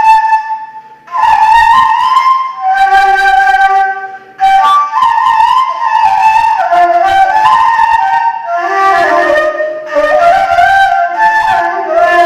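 Solo ney, the Arabic end-blown reed flute, playing a free improvisation with a breathy tone. It plays flowing melodic phrases that step up and down, with short breath pauses about a second in and again about four seconds in.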